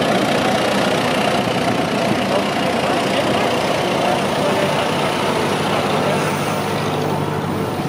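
Engine of a vintage solid-tyred lorry running steadily at low speed as the lorry drives slowly past and away.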